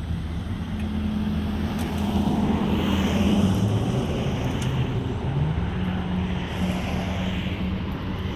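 Freight train of double-stack container cars rolling past: a steady rumble of steel wheels on the rail, with a low hum that shifts in pitch a few times.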